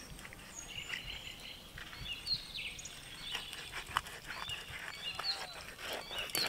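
Small birds chirping and calling in short, quick rising and falling notes, with scattered short clicks among them.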